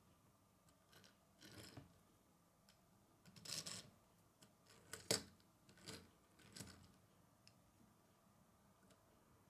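Small Lego car's plastic wheels rolling across a wooden tabletop under a pushing hand, in a few short, faint rasps, with one sharp click of plastic on wood about five seconds in.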